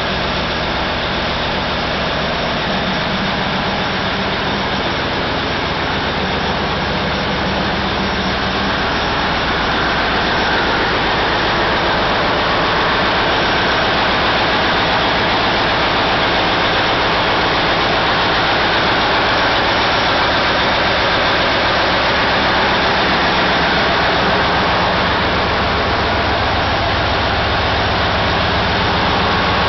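Caterpillar 3606 inline six-cylinder diesel engines running steadily in an engine room: a loud, dense drone over a steady low hum, growing a little louder about a third of the way through.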